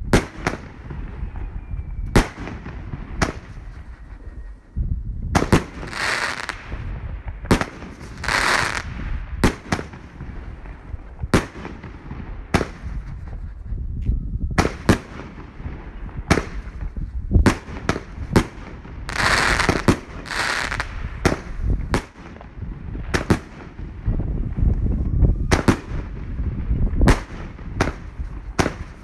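Consumer fireworks battery (Jorge JW407 "The Legend") firing shots that burst overhead: a string of sharp bangs about a second apart, irregularly spaced, with a few longer hissing stretches about six, eight and twenty seconds in, over a low rumble.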